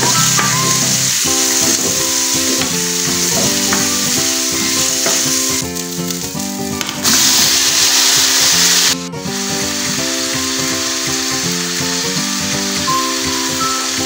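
Onions, garlic and ginger sizzling in hot oil in a pan. About seven seconds in, diced tomatoes go into the oil and the sizzle turns much louder for about two seconds, then settles.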